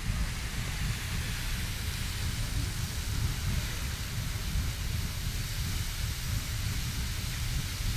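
Riverside Geyser erupting: a steady rushing hiss of water and steam, like heavy rain, over a constant low rumble.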